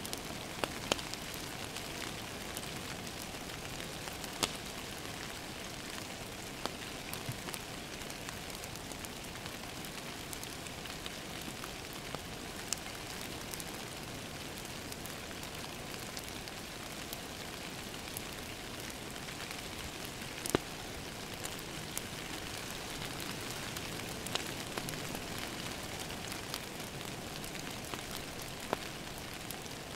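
Steady rain on a window over a crackling wood fire, with sharp pops every few seconds, the loudest about twenty seconds in.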